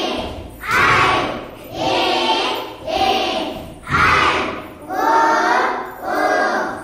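A group of children singing and chanting a Kannada vowel song loudly in unison, in short phrases about once a second.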